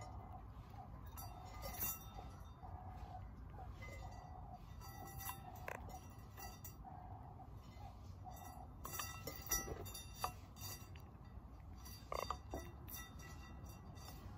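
Cape glossy starlings and a crested barbet at a steel feeding bowl: claws and beaks tapping and clinking on the metal as they land, hop and peck at mealworms, with brief wing flutters. The sharpest clinks come about two seconds in, near the middle, and about twelve seconds in, and a soft repeated low note sounds in the first few seconds.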